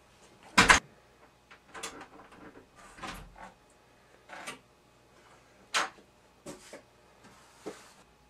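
A string of short, scattered knocks and clatters, the loudest a sharp thump about half a second in.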